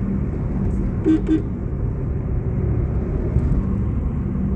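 Car engine and road noise heard from inside the cabin while driving, a steady low hum. Two short beeps come close together about a second in.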